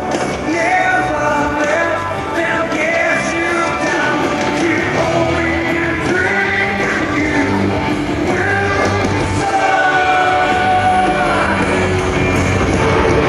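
Rock music with a singer's voice.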